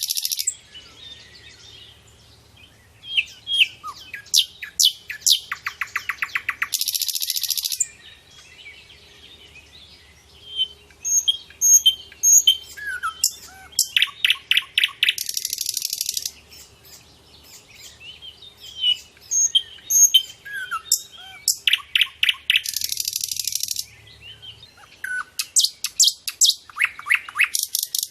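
Wild songbirds calling and singing: rapid high trills, short whistled notes and brief buzzy bursts. The same song sequence comes round again about every eight seconds.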